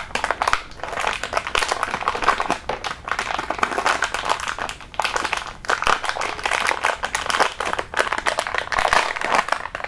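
Metallized anti-static shielding bag crinkling and rustling as it is handled and pulled open, a dense run of crackles.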